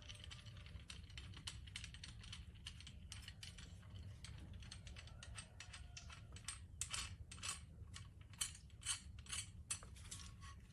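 Faint, irregular clicks and taps, coming thicker and a little louder in the second half, over a low steady background hum.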